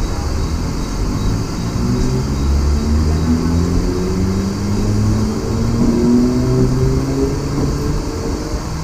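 Mumbai suburban EMU local train accelerating out of a station: the traction motors whine in several tones that climb in pitch as it picks up speed, over the rumble of the wheels on the rails.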